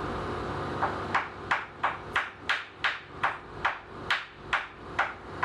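Rapid, evenly spaced sharp knocks, about three a second, starting about a second in, over a steady low hum.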